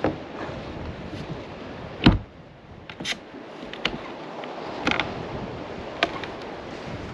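Tinted acrylic deck hatch on a sailing catamaran being shut: the lid comes down with a heavy thump about two seconds in, then its latch handles are turned, making a few sharp clicks.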